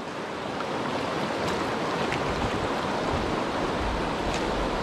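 Whitewater of a river rapid rushing steadily around the kayak, with a deeper low rumble from about two seconds in.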